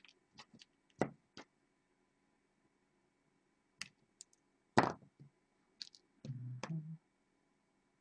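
Scattered sharp clicks and taps of small wire cutters, jumper wires and components being handled on a tabletop, with one louder snap about five seconds in.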